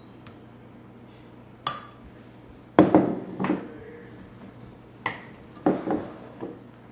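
A blender jar clinking and knocking against a cup as the thick shake is poured out: one bright ringing clink, then several heavier knocks.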